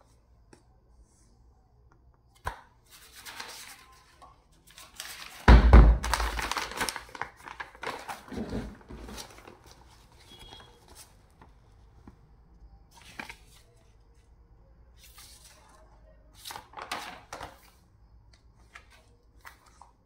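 Paper and cardboard being handled: a paper invoice and the keyboard's cardboard box rustling and crinkling in the hands, with a sharp click about two and a half seconds in, a loud rustling thump about five and a half seconds in, and softer scattered rustles after.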